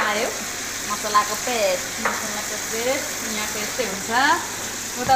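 Fish curry frying in hot oil in a wok, a steady sizzle, with a few light knocks of a spoon.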